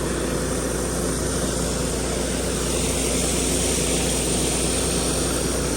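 Gas-engine pressure washer running at a steady drone, with the hiss of high-pressure water.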